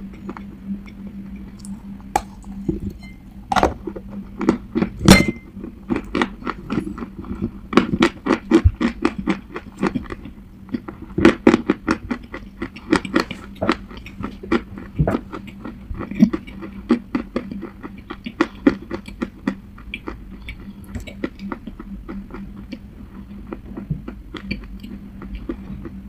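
Baked clay being bitten and crunched close to the microphone: dense crackling clicks with a few louder sharp snaps early on, over a faint steady low hum.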